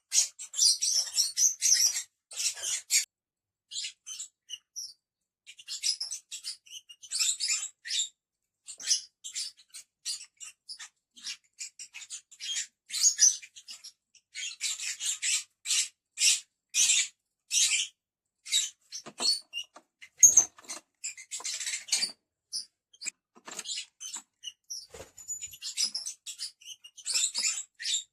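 Several lovebirds chirping and chattering in short, shrill, high-pitched bursts that come irregularly and almost without pause.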